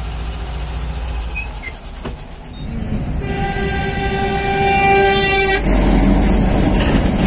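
A truck's horn sounds one long steady blast of about two and a half seconds over the road and engine noise of the moving van. The truck then passes close with a loud rushing rumble.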